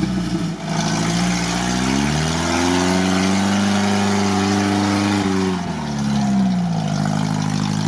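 UAZ off-roader on BTR armoured-carrier tyres crawling through swamp mud. Its engine revs up about two seconds in, holds steady, then drops back about six seconds in.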